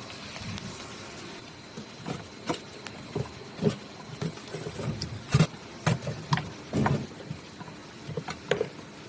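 Irregular clicks and knocks, a dozen or so spread over several seconds, the loudest about halfway through, over a steady background hum.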